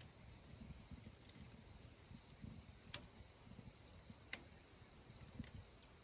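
Wood fire in a metal fire pit crackling softly, with sharp pops about three seconds in and again a little past four seconds.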